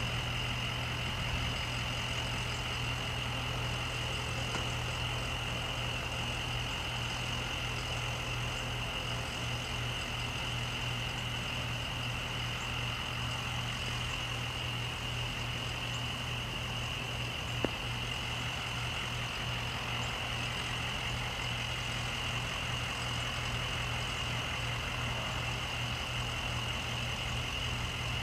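CSX diesel freight locomotive idling steadily while the autorack train stands still, a constant low hum. One short sharp click a little past halfway.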